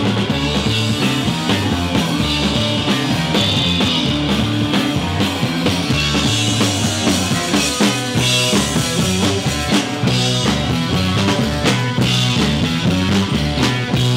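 Rock music played by a band on drum kit, bass guitar and electric guitar, with a moving bass line. It is loud and steady throughout.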